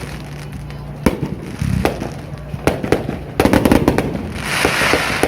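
Fireworks going off: single sharp bangs every second or so, then a quick cluster of bangs about three and a half seconds in, followed by a hissing crackle near the end.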